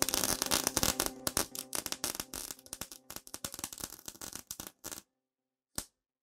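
Crackling spark sound effect: a dense run of irregular snaps and crackles over a faint hum, thinning out and stopping about five seconds in, then one last short crackle near the end.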